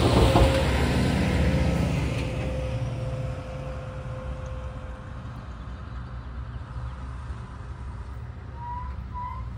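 Heavy truck driving past and away, its engine and tyre noise loudest at the start and dying down over the first few seconds into a low traffic rumble.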